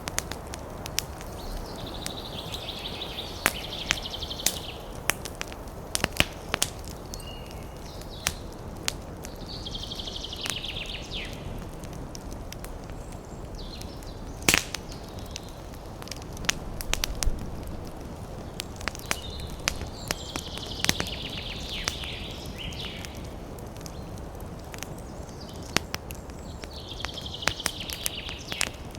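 Wood fire in a fireplace crackling, with irregular sharp pops over a steady low rustle, one louder pop about halfway through. Four times a hissing sound from the burning wood rises for a second or two.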